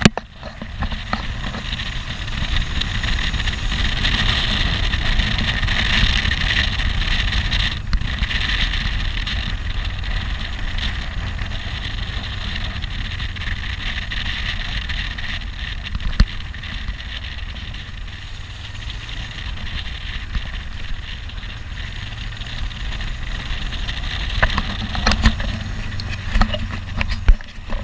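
Wind rushing over the microphone of a motorcycle rider's helmet camera, with a low rumble from the motorcycle underneath. The rush is loudest for several seconds near the start, and a few clicks come near the end.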